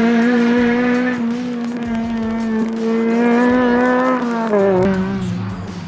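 Honda Civic Type R's four-cylinder engine held at high revs under load, a steady high note that climbs slightly. About four seconds in the revs fall away as the driver lifts off, with a short blip before the note drops again near the end.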